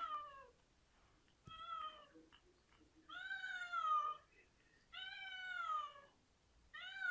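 Domestic cat meowing repeatedly at a closed door. A short meow comes first, then longer drawn-out meows about every two seconds, each sliding down in pitch.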